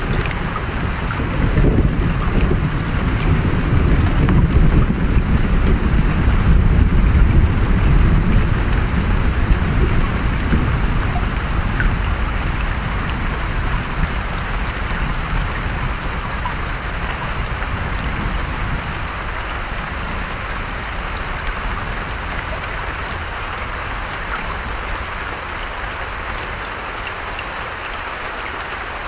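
Steady rain falling, with a low rolling rumble of thunder through the first half that gradually fades away.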